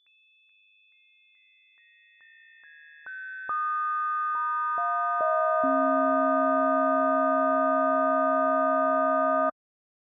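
Synthesized sustained model of a 12-pood bell cast in 1562, its partials sounding as steady pure tones. They enter one after another from the highest down to the lowest, the sound growing fuller and louder until the deepest tone comes in about five and a half seconds in. The held chord then cuts off suddenly near the end.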